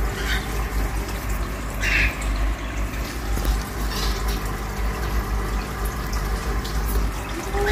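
Aquarium sponge filters bubbling steadily from their air lift, a continuous watery rush with a low hum underneath and a few brief brighter splashes.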